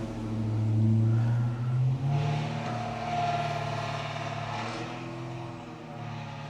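A car's engine running, a steady deep hum. Its note rises briefly about two seconds in, then it gradually fades away.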